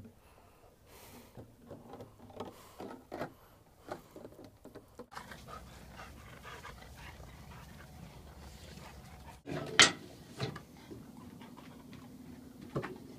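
Labrador retriever panting in short, quick puffs. A single sharp clack about two-thirds of the way through is the loudest sound.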